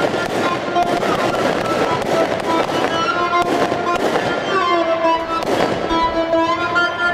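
Fireworks going off: a series of sharp bangs and crackles. Music with a steady melody plays throughout.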